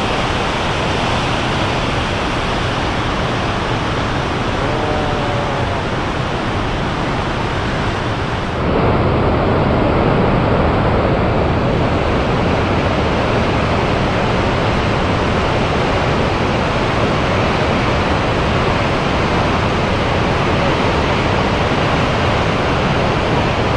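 Miyagase Dam's low-level regular flood outlet discharging during an inspection release: the jet crashes into the churning stilling basin in a loud, steady rush of water. About nine seconds in, the rush turns abruptly a little louder and fuller.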